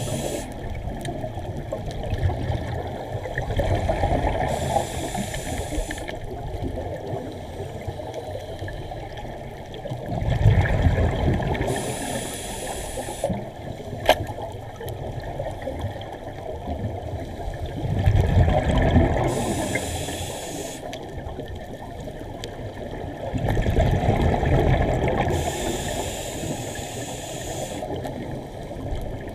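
Scuba regulator breathing heard underwater: a rumble of exhaled bubbles about every seven seconds, each followed by a hiss. One sharp click about halfway through.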